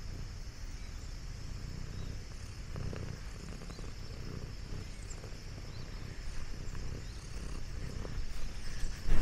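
Domestic orange tabby cat purring close up, a steady low rumble. Louder bumps and rustles come near the end.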